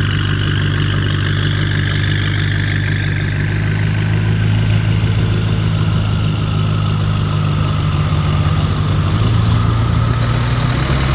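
BMW M5 F90's twin-turbo 4.4-litre V8 idling steadily with a deep, even burble through its decatted Akrapovic exhaust.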